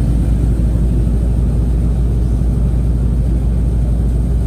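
Steady low rumble of a passenger train rolling along, heard from inside the carriage.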